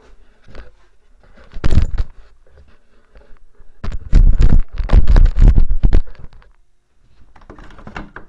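Loud knocks and heavy thuds with some scraping and rattling: one knock about two seconds in, then a rapid run of heavy thuds for a couple of seconds in the middle.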